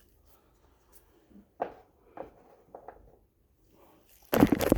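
Soft rustles and taps of baseball cards and a foil pack wrapper being handled, a few short separate sounds, then a loud burst of rustling handling noise near the end.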